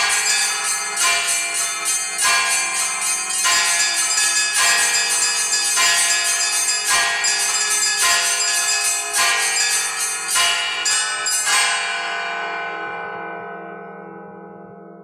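Orthodox church bells ringing a festive Easter peal, rung by an automatic electronic bell-ringing system: many bells struck in quick, overlapping succession over a deep ringing tone. Near the end the striking stops and the bells ring out, fading away.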